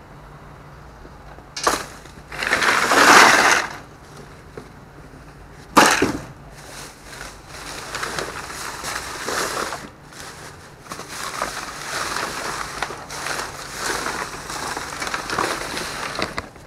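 Clear plastic trash bags rustling and crinkling as hands dig through and shift them, in loose bursts, with one sharp knock about six seconds in.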